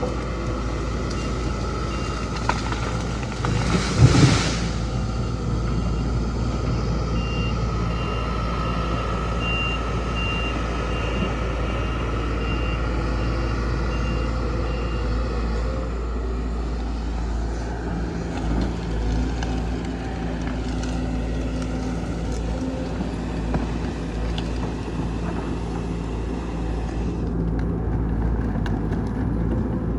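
Komatsu PC200 hydraulic excavator's diesel engine running steadily, with a loud crash about four seconds in. A repeated beeping alarm sounds through the first half.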